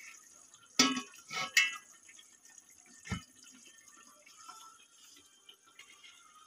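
A steel spoon clinking and scraping against a metal pot a few times as fried potatoes are lifted out of the oily masala and shaken off, over faint sizzling of the oil.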